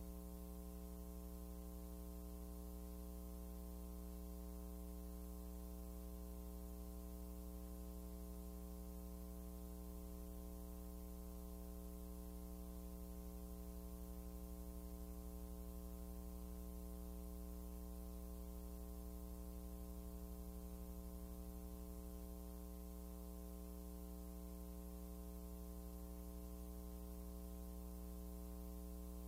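Steady electrical mains hum, a low buzz made of a stack of even overtones with a faint hiss above, unchanging throughout.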